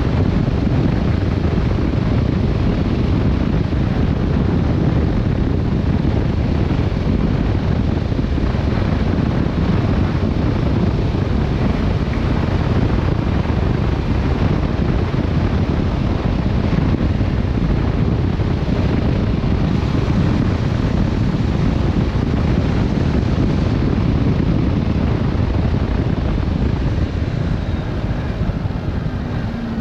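Steady, loud wind rush on the camera microphone of a Yamaha Tracer 7 motorcycle riding at speed, with the engine buried in the noise.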